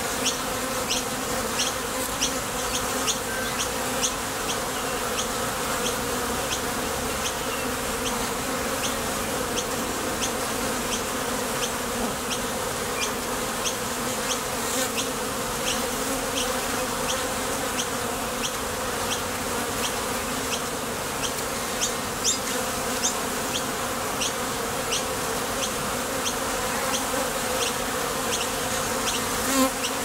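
Honeybees buzzing at the entrance of a top bar hive as foragers leave and land: a steady, dense hum with a pitched drone, overlaid by frequent short ticks.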